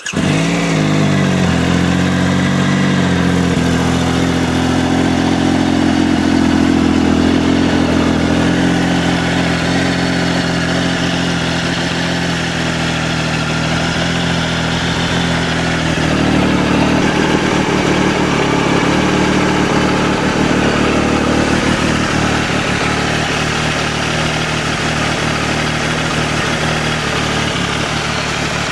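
A 2012 Triumph Tiger Explorer's three-cylinder engine catching and running at a fast idle, then dropping to a slower steady idle about halfway through. It carries the rattling noise the owner wants the dealer to sort out.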